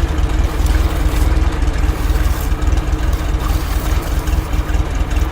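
A heavy engine running steadily at idle, with a fast, pulsing low rumble.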